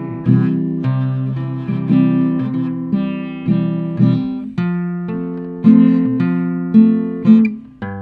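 Acoustic guitar strummed with no singing, each chord ringing out and dying away before the next stroke, about one strum every second.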